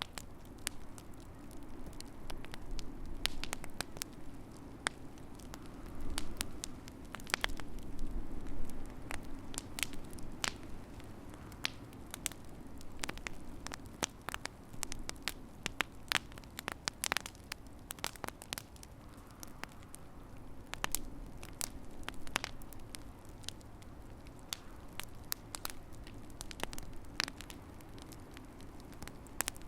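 Wood fire in a fireplace crackling: irregular sharp pops and snaps, some in louder clusters, over a low steady rumble of the burning fire.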